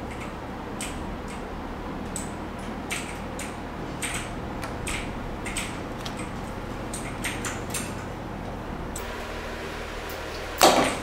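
Light, irregular clicking of a computer keyboard and mouse being played on, over a steady low hum. A sudden loud noise breaks in near the end.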